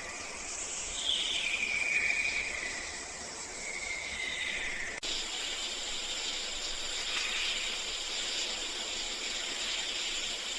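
Steady hissing outdoor ambience. It changes abruptly about halfway through to a different, higher even hiss.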